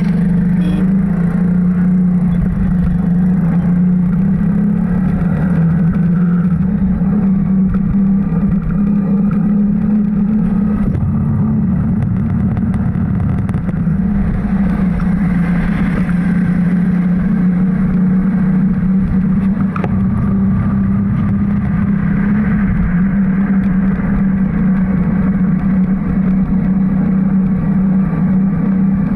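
Motor vehicle engine running steadily on the move, a constant drone with low road rumble. The engine note wavers for a couple of seconds about eleven seconds in.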